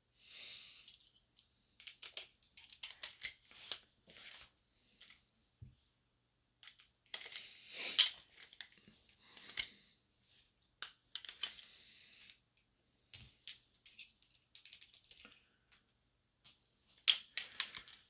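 Irregular small metallic clicks, clinks and short scrapes of 7.62x39 brass cartridges being handled, seated in a hand-held reloading press and set down, as each round gets a factory-style crimp.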